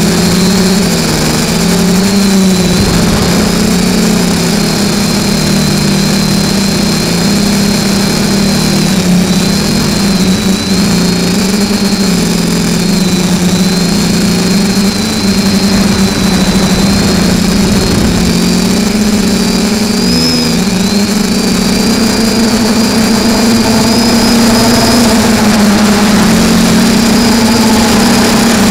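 FPV quadcopter's brushless motors and propellers whining in flight, heard from the camera on the quad itself. It is a steady, loud drone with a low hum and a high whine whose pitch wavers up and down as the throttle changes.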